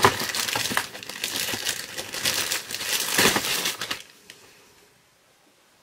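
Clear plastic bag crinkling and rustling as a replica wand is pulled out of it, stopping abruptly about four seconds in.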